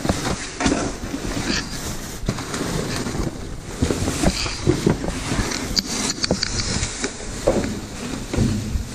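Plastic garbage bags rustling and crinkling as they are shifted and rummaged through by hand, with irregular small knocks and bumps throughout.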